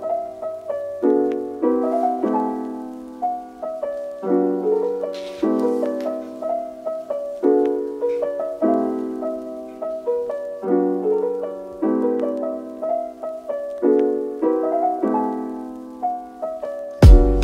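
Background music: a gentle piano melody with chords struck about once a second, each note fading, and drum hits coming in near the end.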